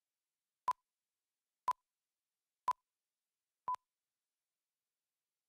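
Four short electronic beeps of one steady pitch, evenly spaced a second apart, the last one a little quieter.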